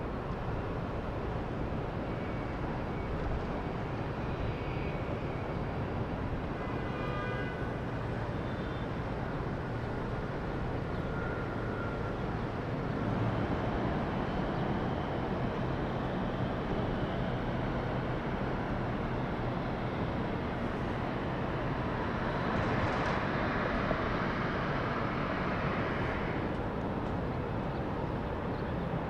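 Steady jet engine noise across the airport, with faint whistling tones, swelling for a few seconds about three quarters of the way through.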